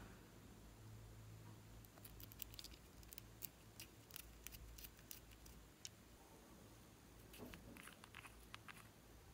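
Faint clicks and light taps of small nail-polish bottles and their caps being handled in the fingers, in two bunches: a run of clicks a couple of seconds in, then a shorter cluster near the end as a cap is worked.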